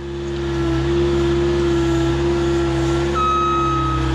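Skid loader engine running, getting louder over the first second. About three seconds in, its backup alarm starts beeping with a steady high tone as the machine reverses.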